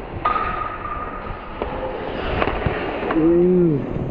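Ice hockey play heard up close: skate blades scraping the ice, with a few sharp clacks of stick and puck. About three seconds in comes a short wordless shout.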